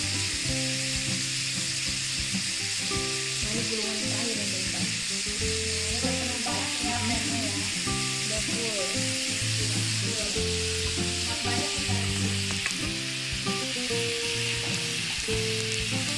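Rolled thin-sliced beef steaks sizzling steadily as they fry in a hot pan.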